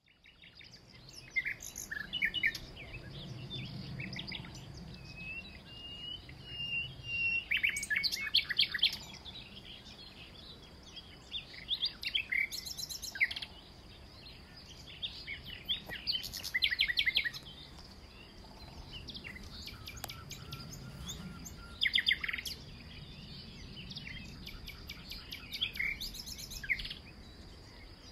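Wild songbirds singing: short bursts of chirping song and rapid trills every few seconds, over a faint steady high-pitched tone.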